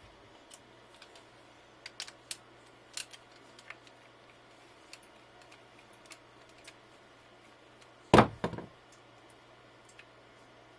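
Scattered small clicks and taps of a screwdriver and small metal parts as the screws of a CPU water block are worked loose, with one louder knock and brief clatter about eight seconds in.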